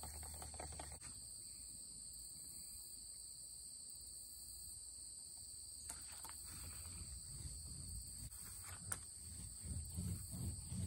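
Steady high-pitched chorus of crickets, two unbroken tones at different pitches. Faint low rustling and handling noise comes in near the end.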